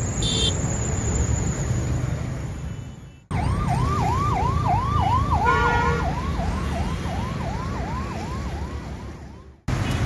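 Emergency vehicle siren in a fast yelp, about two rising-and-falling sweeps a second, starting abruptly and fading toward the end. Before it, a steady rushing noise.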